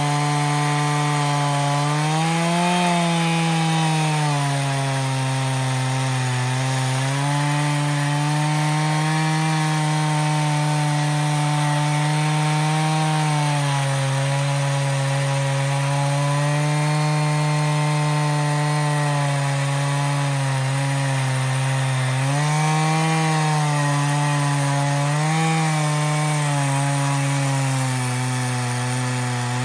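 Two-stroke chainsaw on an Alaskan mill running under load as it rips along a log, its engine pitch rising and dipping a few times as the cut bogs and frees, over the steady hiss of the chain in the wood.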